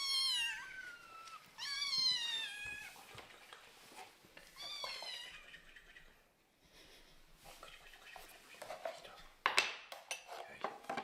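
Kittens meowing: three long, high cries, each falling in pitch, in the first half. Near the end comes a quick run of clicks and knocks.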